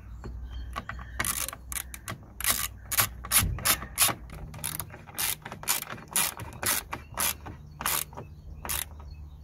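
Ratcheting screwdriver clicking as it is worked back and forth, driving in the top screw that holds a door mirror to the door. The clicks come about three a second, starting about a second in and thinning out near the end.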